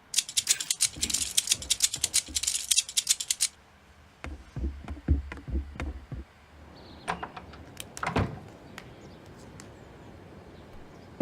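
A fast run of sharp clicks, like typing or rattling, for about three and a half seconds, then a few low thumps and scattered single clicks over a faint steady hiss.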